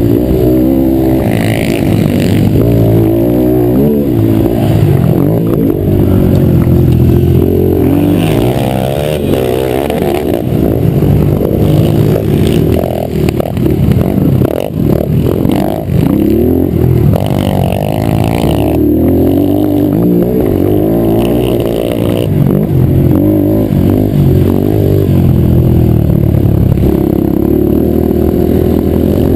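Yamaha TT-R125's single-cylinder four-stroke engine heard up close from the bike as it is ridden, its pitch rising and falling with the throttle and gear changes. Clattering over the bumps comes and goes, most around the middle.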